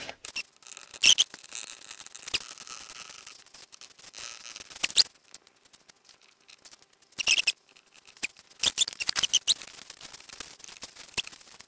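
A cloth rubbing and squeaking in short, irregular strokes along the sealing edges of a Vespa smallframe engine-case half, wiping them clean with silicone remover before assembly.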